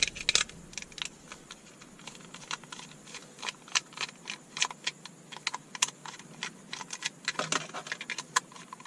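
Small screwdriver unscrewing the screws of a plastic LED spotlight housing: irregular light clicks and ticks of the metal tip in the screw heads and of hands on the plastic shell.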